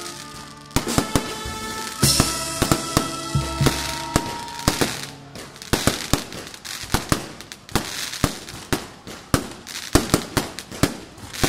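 Aerial fireworks going off overhead: rapid sharp bangs and crackling, several reports a second. During the first five seconds music with long held chords sounds beneath the bangs, then stops, leaving only the fireworks.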